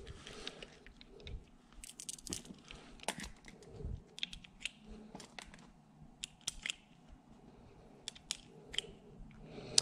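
Light metallic clicks and taps, irregular and scattered, of .380R blank cartridges being pushed into the open swing-out cylinder of a chrome blank-firing revolver.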